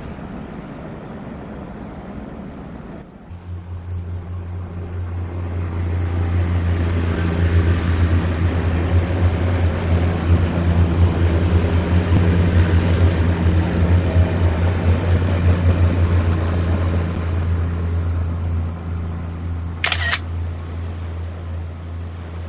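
Diesel multiple unit of two coupled railcar sets passing, its engines giving a steady low drone that swells as it comes by and eases off as it draws away. A brief sharp high-pitched squeal cuts in near the end.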